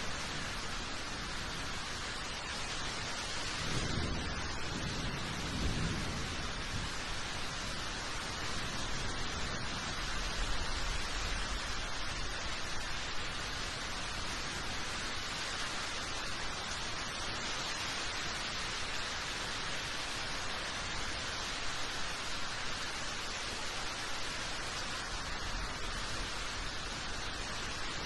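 Steady rain falling, an even hiss, with a brief low rumble about four seconds in.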